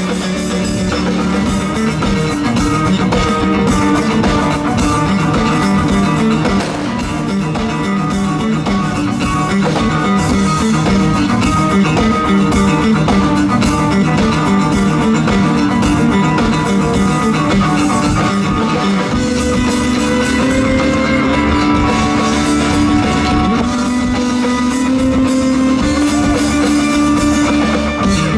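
Loud live rock music from a band: electric guitar and bass over a drum kit.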